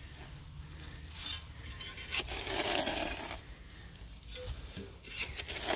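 Small digging shovel scraping and cutting into hard dirt: a few short knocks, then a longer scrape about two seconds in and another near the end.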